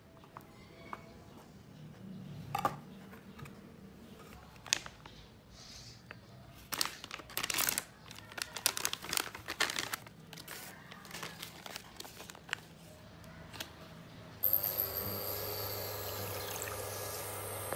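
A kitchen knife taps now and then on a bamboo cutting board as mozzarella is cut. Then a plastic food packet crinkles as it is pulled open. About 14 seconds in, water suddenly starts pouring from a plastic measuring jug into a pan and keeps on steadily.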